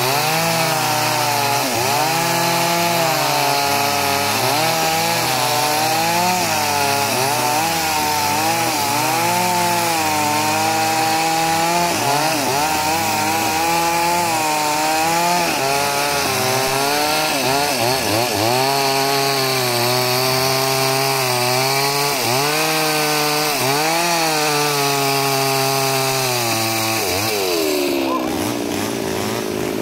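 Petrol chainsaw ripping lengthwise through a small but very hard log. The engine note wavers up and down as the bar bogs and recovers in the cut. Near the end it falls away as the saw comes out of the wood.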